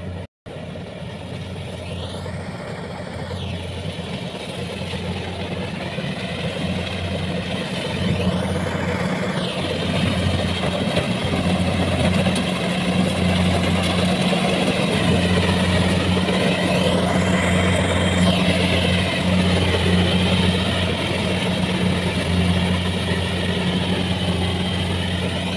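Diesel engine of a rice combine harvester running steadily, its drone growing louder over the first ten or so seconds. There is a momentary break in the sound just after the start.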